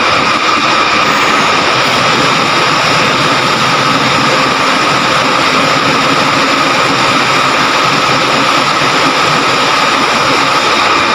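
Truck-mounted crane (boom truck) running steadily during unloading: a loud, even engine drone with a constant high whine over it.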